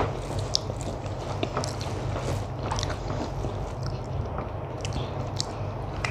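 A person chewing a mouthful of rice and curry, with many small wet mouth clicks, while fingers mix food on a plate. A steady low hum runs underneath.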